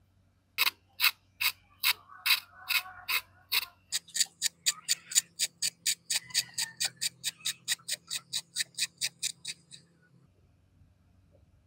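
A run of sharp metallic ratcheting clicks from a hand tool's mechanism. They come about two a second at first, quicken to about four or five a second after about four seconds, and stop shortly before the end.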